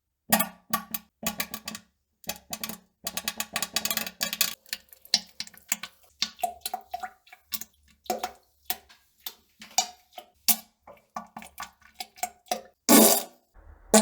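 Comedy poop sound effect: a long, irregular series of short pops and sputters, a few with a brief pitched squeak, building to a louder fart-like blast near the end.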